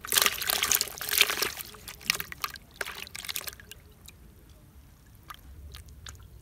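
Water splashing and sloshing in a plastic bucket as a hand puts a freshly caught fish into it. It is loudest over the first second and a half, then fainter splashes follow until about three and a half seconds in.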